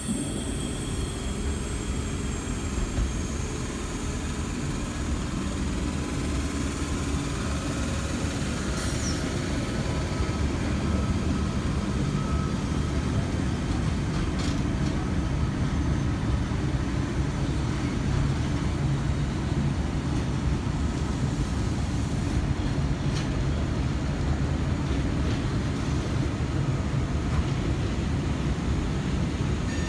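Eight-car V set electric double-deck train pulling out and rolling past, a steady rumble of motors and wheels on the rails that slowly grows louder as it gathers pace, with a few faint ticks.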